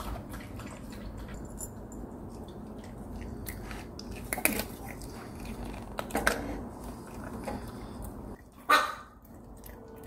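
Maltese dogs eating dry kibble from glass bowls on a raised feeder, with a few short sharp sounds; the loudest comes near the end.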